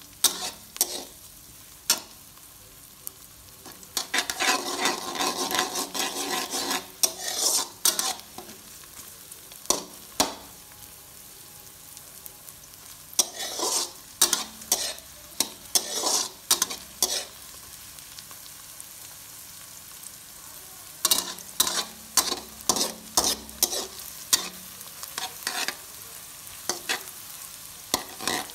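Spatula scraping and knocking against a wok as eggs, onions, chillies and curry leaves are stirred, over a steady sizzle of frying oil. The scraping comes in bouts: a long stretch about four to seven seconds in, more around thirteen to seventeen seconds, and quick repeated strokes from about twenty-one to twenty-seven seconds.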